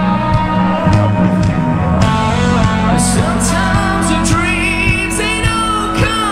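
A live rock band playing loudly over a festival PA, with electric guitar and a singer.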